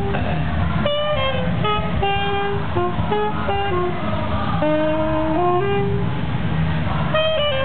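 Saxophone playing a lively melody, mostly short stepped notes with a few held longer.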